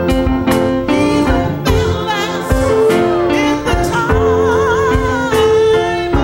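Church choir singing a gospel song with instrumental accompaniment. Around four seconds in, a voice holds long notes with a wide vibrato.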